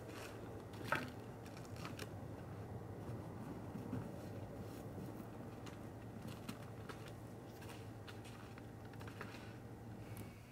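Wood fire in a smoker's firebox crackling: a few irregular sharp pops, the loudest about a second in, over a steady low background hum.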